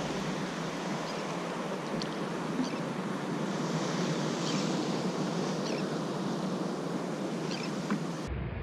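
Steady sea and wind noise around a fishing kayak, with a few faint light ticks and splashes of water.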